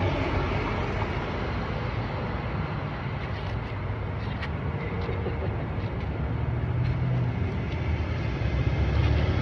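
Road traffic passing on a busy street: a steady noise of cars going by, swelling near the end as a car comes closer.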